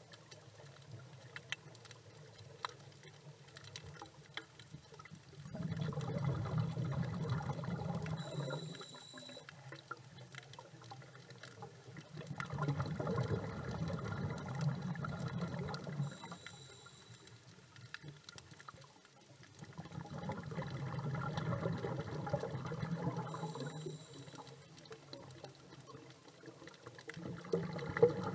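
Scuba diver's breathing heard underwater: the regulator's exhaled bubbles rush out in bursts of a few seconds, about every seven seconds, four times, each followed by a short high hiss of inhalation through the regulator.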